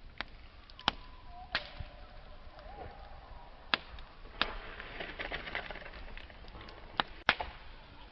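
Campfire of burning wood crackling, with sharp pops and snaps every second or so, a denser spell of crackling midway, and two loud snaps close together near the end. A faint thin whistling tone sounds in the first few seconds.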